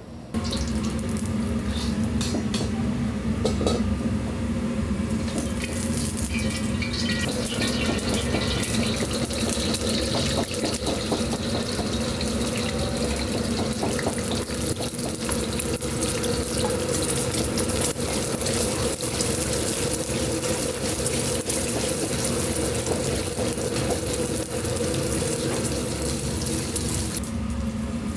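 Commercial gas wok burner running with a steady hum under the sizzle of beaten eggs frying in hot oil in the wok, starting about half a second in, with the ladle clicking and scraping against the wok now and then.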